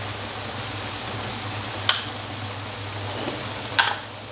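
Purple eggplant simmering in a little water in a steel wok: a steady hiss over a low hum, broken by two short sharp clinks about two seconds apart.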